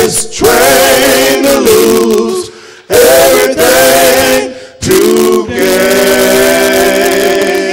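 A gospel vocal group singing in harmony with no instruments heard, three drawn-out phrases, the last a long held chord.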